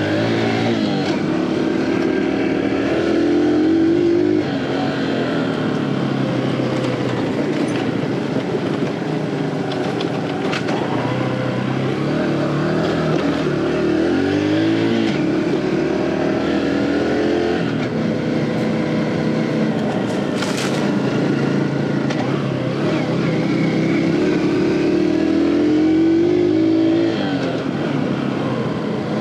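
A 115cc single-cylinder four-stroke engine of an Aveta Ranger Cub Cross 115 motorcycle running under way. Its revs climb over a few seconds and then drop sharply, three times over. A brief hiss comes about two-thirds of the way in.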